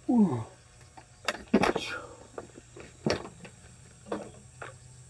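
A crucian carp being played on a pole rod and landed: splashes at the surface and knocks of tackle, several short bursts a second or so apart. At the very start there is a brief falling vocal sound.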